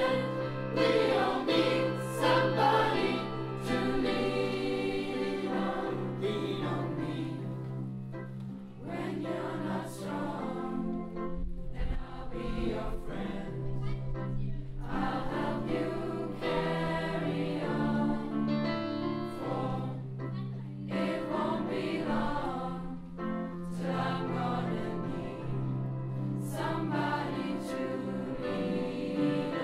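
Mixed choir of male and female voices singing, over held low notes that change pitch in steps.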